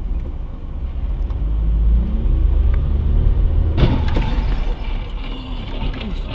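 A car's engine and road rumble, recorded from inside the vehicle by a dashcam, with a sudden louder noise about four seconds in.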